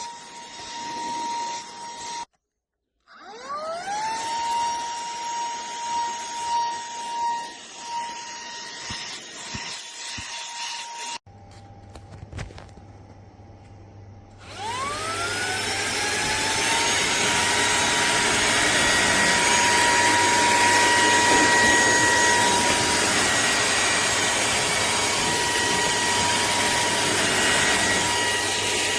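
Cordless handheld vacuum cleaner's motor running with a steady whine. It stops briefly, then spins up again with a rising whine about three seconds in, and once more about halfway through; the second run is louder and goes on steadily.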